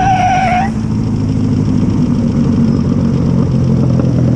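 Motorcycle engine held at high revs for under a second, then dropping back to a steady idle.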